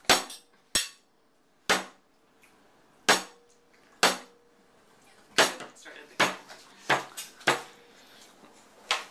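Plastic sippy cup banged down on a placemat-covered table, about ten sharp knocks at uneven intervals, roughly one a second.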